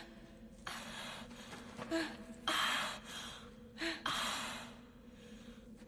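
A woman gasping and breathing hard in several short, breathy bursts, with a couple of brief voiced catches, as she catches her breath after being knocked to the ground. A faint steady hum sits underneath.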